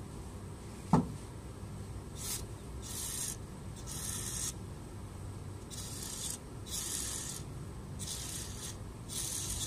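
Carb cleaner hissing through a fuel injector in about seven short sprays, roughly one a second, as the injector is pulsed open to clean it. A single sharp click comes about a second in.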